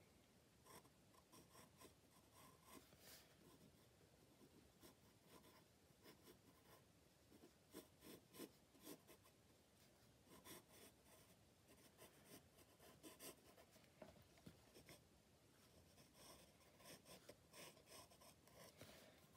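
Faint scratching of a pencil sketching on sketchbook paper, in short, irregular strokes.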